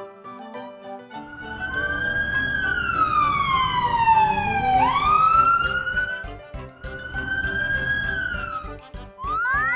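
Cartoon siren sound effect over background music: one wailing tone slides slowly down in pitch, swoops sharply back up about halfway through, then holds and falls again. Quick rising swoops come near the end.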